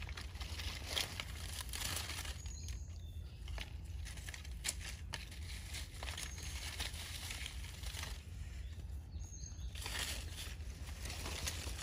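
Dry leaf litter rustling and crackling as hands and a stick work through it, with scattered small crackles over a steady low rumble.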